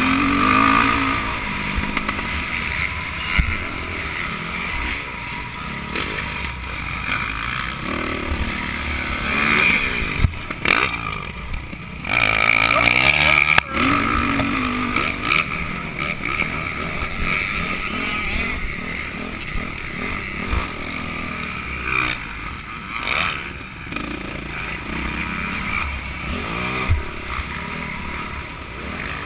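Dirt bike engine revving up and down, with pitch rising and falling. It is heard from a helmet-mounted camera as the bike rides a motocross track. It is loudest about twelve seconds in.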